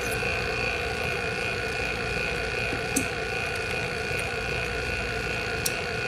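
A machine hums steadily with a constant high whine over it. Two faint clicks, about halfway and near the end, come as the compressor's wiring connectors are handled.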